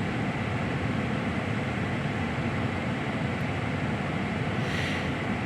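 A truck running steadily, heard from inside its closed cab: a low, even rumble. A brief soft hiss comes near the end.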